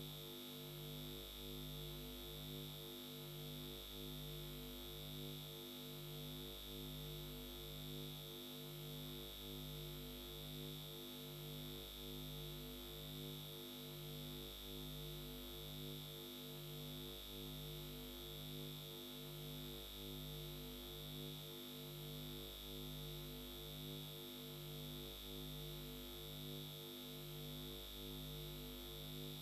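Steady electronic drone: low tones pulsing at an even, unchanging rate under a constant high whine.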